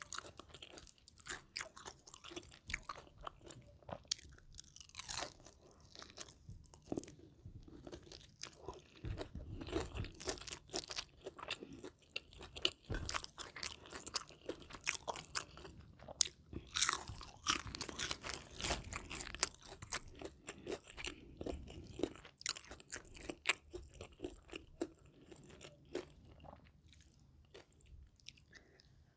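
Crunchy food being bitten and chewed close to the microphone: irregular, repeated crisp crunches over a quieter chewing sound.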